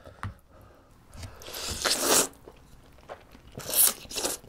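A person slurping up thick pasta noodles close to the microphone: a long slurp that swells and cuts off about two seconds in, then a second, sharper slurp near the end.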